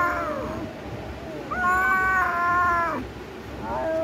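Kitten meowing in long, drawn-out calls held at a steady pitch: one ends just after the start, another of about a second and a half comes in the middle, and a third begins near the end.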